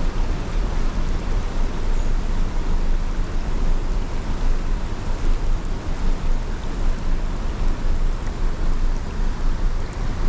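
Rushing water of river rapids, a steady dense hiss with a strong low rumble underneath.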